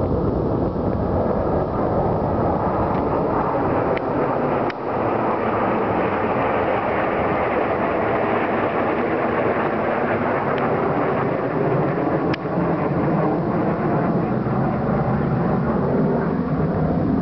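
Jet engines of a formation of four military jets flying over: a steady roar whose tone shifts as they pass.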